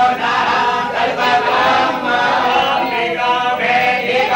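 Group of Hindu priests chanting a prayer together in unison, several male voices in a steady chant.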